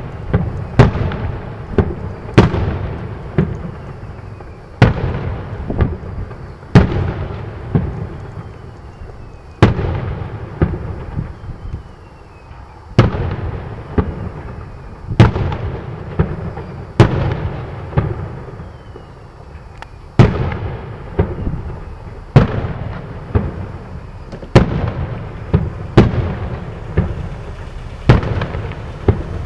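Firework salute cake firing its aerial salutes: a long, uneven run of about thirty sharp, loud bangs, roughly one a second, each followed by an echoing tail.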